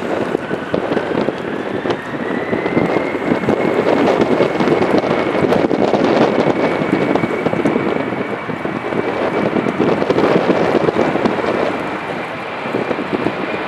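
Jet airliner engines running on the runway: a rumble under a thin whine that rises in pitch over the first few seconds and then holds steady. Wind buffets the microphone.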